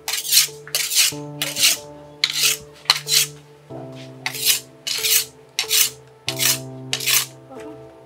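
A knife blade sharpened by hand on a stone: about a dozen scraping strokes, roughly two a second with short pauses, over background music.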